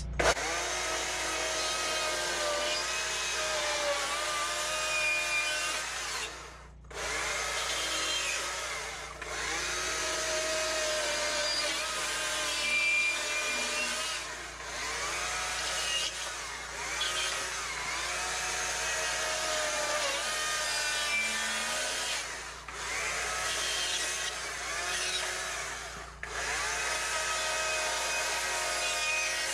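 Small-bar chainsaw cutting wood at high revs, its pitch rising and falling as it bites. The throttle drops off briefly several times between cuts.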